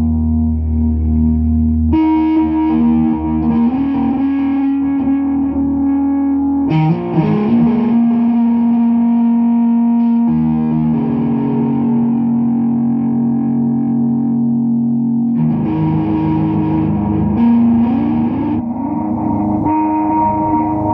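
Distorted electric guitar drone, a Squier Stratocaster through an MXR Carbon Copy analog delay and an Orange MicroTerror amp into a 4x12 cabinet. Held, overlapping notes smeared by delay repeats, with the chord shifting every few seconds.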